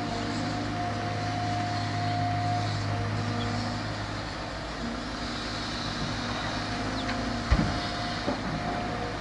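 A vehicle engine running steadily, with a single knock about seven and a half seconds in.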